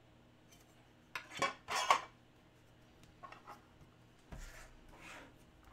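Trading cards and their hard plastic holders and packaging being handled: a few short rustles and clacks, with a longer stretch of handling noise near the end.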